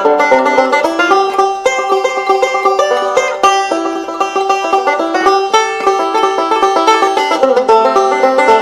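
Background music: fast bluegrass-style picking of plucked string notes, a banjo to the fore.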